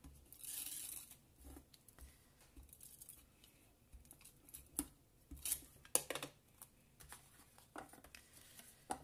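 Small strips of card and patterned paper being handled and fixed in place: a short papery rasp near the start, then scattered light clicks and taps.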